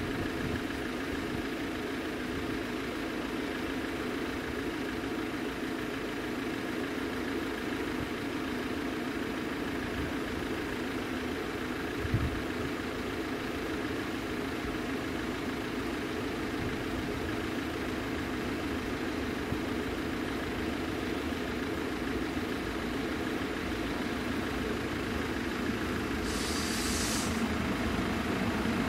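Level crossing warning bell ringing steadily while the barrier is down. A diesel railcar grows louder as it approaches near the end.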